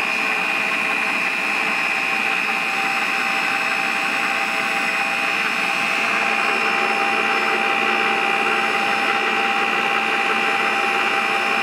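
Electric mixer running steadily at one speed with a high motor whine, beating butter and powdered sugar into a fluffy filling.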